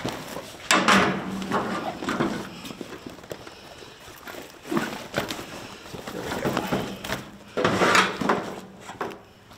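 Heavy soft-top fabric rustling and flapping as it is unfolded and shifted around by hand, in several irregular bursts, the loudest about a second in and again near eight seconds in.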